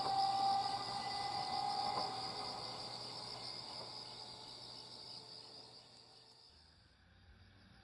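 Chikuho Electric Railway 2000-series tram pulling away, its steady whine fading out over the first couple of seconds, over a steady trill of insects such as crickets. Everything fades away about six and a half seconds in.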